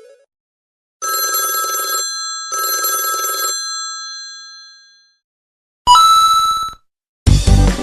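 Ringtone imitating an old telephone bell: two rings, each about a second long, the second trailing off. Near the end comes a short buzzy tone, then the start of a musical ringtone.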